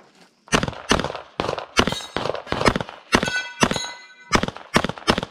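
Semi-automatic pistol fired in a rapid string of about eleven shots, mostly in quick pairs, the usual two hits per target in an IPSC stage.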